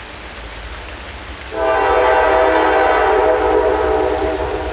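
Air horn of an approaching Norfolk Southern freight locomotive: one long blast, a chord of several tones, starting about a second and a half in and easing off near the end, over a steady low rumble.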